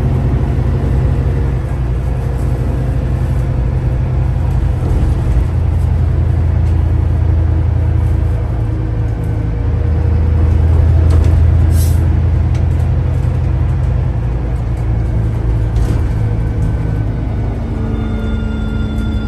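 Volvo B8RLE bus under way: a deep, steady diesel engine drone that swells for a few seconds in the middle. There is a short hiss about halfway through, and a faint whine comes in near the end.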